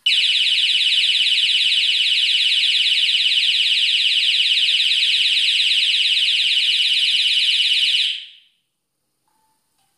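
GSM security alarm's siren sounding after being deliberately triggered in a test, a loud, high-pitched, rapidly warbling tone. It starts abruptly and cuts off about eight seconds in.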